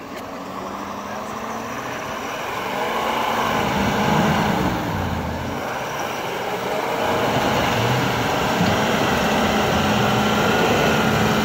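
Ford F-250 Super Duty pickup's Power Stroke diesel engine pulling under load as the truck pushes through deep slush, growing louder as it comes closer. The engine note rises and falls about four to five seconds in, then holds steady, over the hiss of tyres working through the slush.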